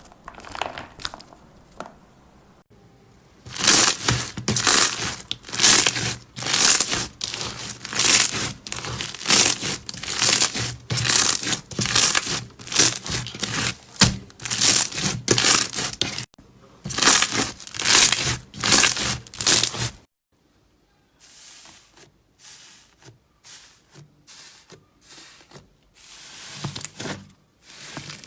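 Crunchy slime being squeezed and pressed by hand: a run of crackling, crinkling crunches, loud through the middle and quieter near the start and end.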